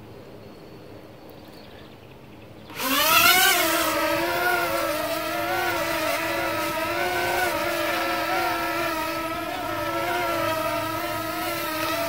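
Parrot Swing mini drone's four electric propeller motors coming in suddenly about three seconds in with a rising whine, then a steady buzzing whine whose pitch wavers up and down as it hovers.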